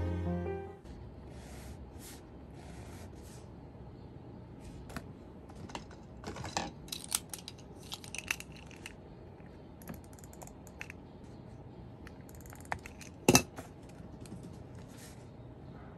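Pen scratching on planner paper in short strokes, crossing out tasks, amid small clicks and taps of pens being handled on a desk. One sharper knock, the loudest sound, comes a few seconds before the end.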